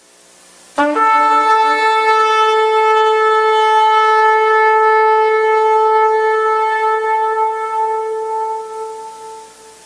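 A shofar blast: a brief low note about a second in jumps up to one long, steady high note held for about eight seconds, fading near the end.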